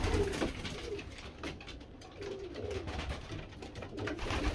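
Racing pigeons cooing in a small wooden loft: repeated low, wavering coos from several birds.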